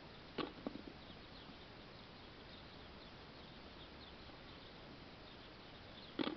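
Brief knocks and rustles at a plastic feed bucket as it is handled while a horse eats from it: a few close together about half a second in and one more near the end. Faint bird chirps sound in the background.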